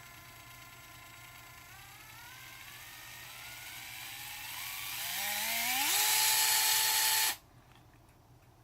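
DeWalt DCF680 gyroscopic cordless screwdriver's motor whining, rising in pitch in steps and then climbing quickly to full speed as the driver is tilted further. It holds there for about a second and then cuts off suddenly.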